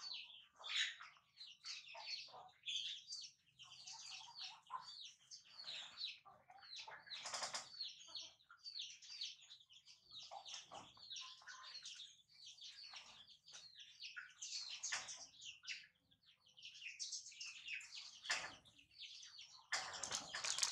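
Small birds chirping in quick, repeated short notes all through, with brief rustles of wet wipes and diaper now and then.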